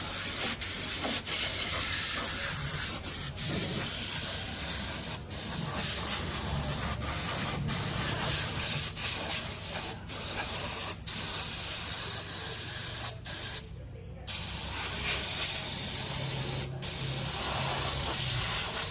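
Hand-held spray gun hissing in long sprays, with a dozen or so brief cut-offs as the trigger is let go, over a low machine hum.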